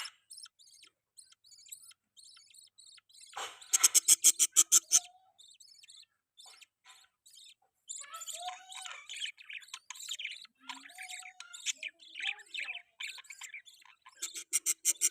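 Budgerigars chirping and warbling in quick, high chirps and wavering pitch glides. Around 4 s in and again near the end, a loud rapid run of evenly spaced pulses, about eight a second, cuts in.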